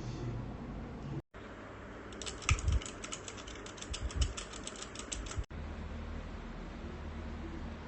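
Rapid typing on a Keychron low-profile mechanical keyboard: a quick run of key clicks, about eight a second, for roughly three seconds, with a few dull low thumps among them.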